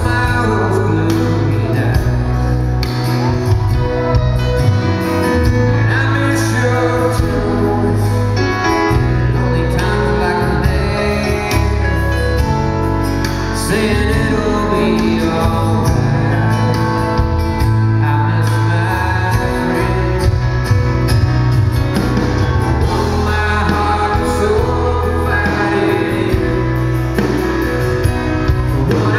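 Live band playing a slow country ballad, with a male lead singer.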